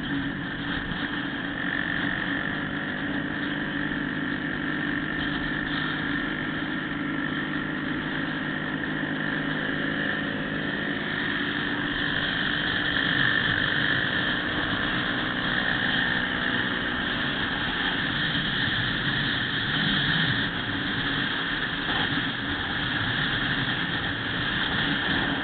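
Motorcycle engine running steadily at highway cruising speed, heard through a bike-mounted camera with wind and road noise; it gets louder and rougher about halfway in, as a truck is passed close by.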